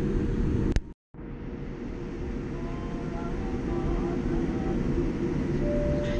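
Cabin rumble of a Boeing 787-9 jet on the ground after landing. It breaks off abruptly about a second in, then comes back quieter, with the steadier hum of the plane taxiing.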